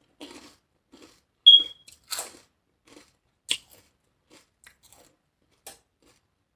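Close-up chewing and biting of lettuce-wrapped tacos: a series of irregular short crunches, the loudest about one and a half seconds in.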